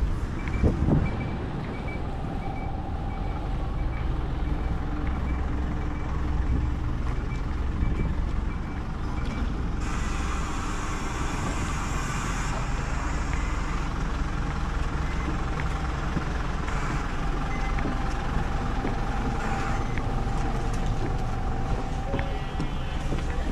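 Street traffic at a bus terminal: a steady low rumble of vehicle engines, with a short high electronic warning beep repeating at regular intervals for the first ten seconds. About ten seconds in, a bus's air brakes let out a hiss of air for a couple of seconds.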